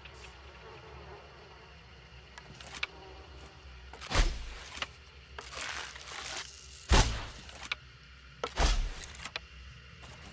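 Hunting bow shots: three sharp, heavy thuds, the first a little before halfway, the next two close together later on, each with a hissing rush of air around it.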